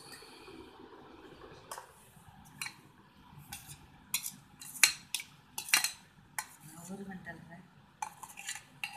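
Stainless-steel cookware clinking and scraping as okra chutney is scooped from a pan into a steel dish. It is a run of sharp, separate clinks, loudest about halfway through, with another cluster near the end.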